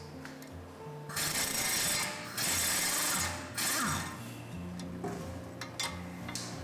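Impact wrench hammering a nut off a strut-to-steering-knuckle bolt in three rattling bursts: two of about a second each, then a short one.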